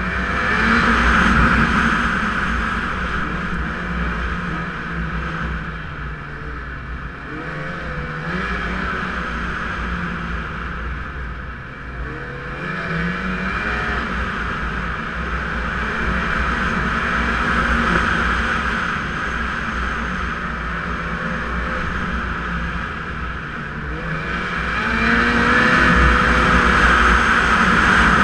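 Snowmobile engine running under way, its pitch rising and falling several times with the throttle, over a steady rushing noise. It is loudest near the start and again over the last few seconds.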